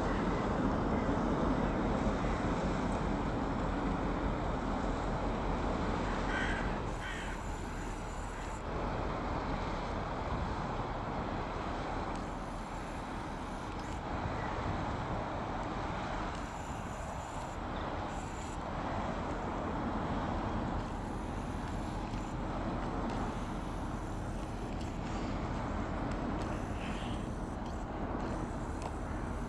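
Low steady rumble of the passing cargo ship Moezelborg, with wind noise. A crow caws a few times about six seconds in and again near the end.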